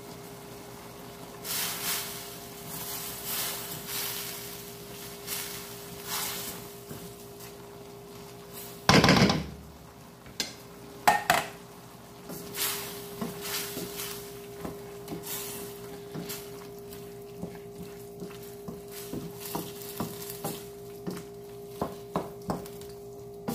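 Spatula stirring and scraping diced chicken and vegetables in a creamy sauce around a stainless steel wok, with sizzling and a steady hum underneath. A loud knock about nine seconds in, followed by a couple of sharp clicks.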